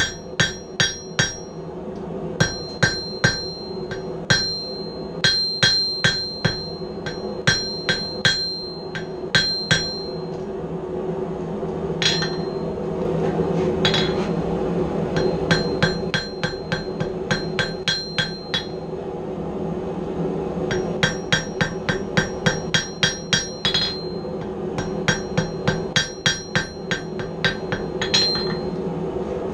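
Hand hammer striking hot steel on an anvil to flatten it out, in runs of quick blows about three a second, each blow making the anvil ring. The blows stop for a few seconds about a third of the way in, apart from two lone strikes, then start again. A steady hum runs underneath.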